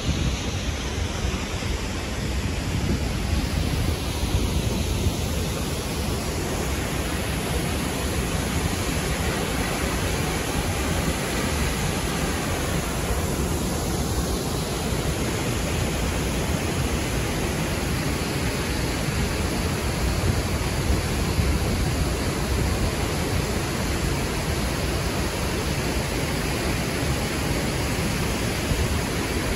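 Steady rushing of a large waterfall, Athirappilly Falls, its water pouring over the cliff at an even level throughout.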